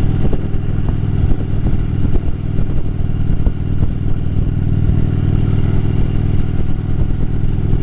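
Harley-Davidson V-twin motorcycle engine running steadily under way, its exhaust pulses thudding evenly with no marked rise or fall in revs.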